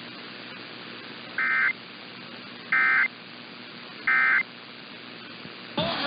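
Emergency Alert System end-of-message (EOM) data bursts: three short, buzzy digital bursts about 1.3 seconds apart, marking the end of the alert, heard through an AM radio receiver over steady static hiss.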